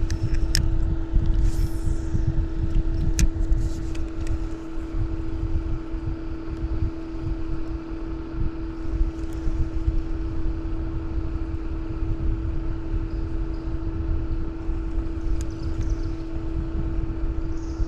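Electric trolling motor running with a steady, unchanging hum, over a low rumble and a few faint clicks.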